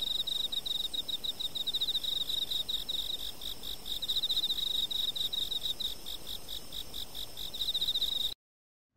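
Played-back sample from an evolved insect-song sound composition: a high-pitched cricket-like chirping trill in rapid pulses over a steady hiss, cutting off suddenly near the end.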